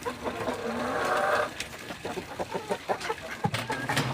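Backyard chickens clucking, with one drawn-out call lasting about a second near the start, then short clucks mixed with scattered sharp taps.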